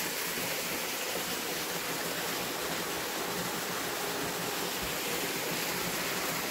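A small spring-fed mountain stream running with a steady, even rush of water.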